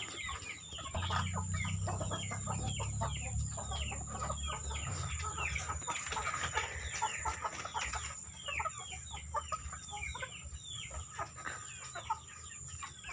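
Chickens clucking and peeping: many short calls that fall in pitch, overlapping one another, over a low rumble that fades about two-thirds of the way through.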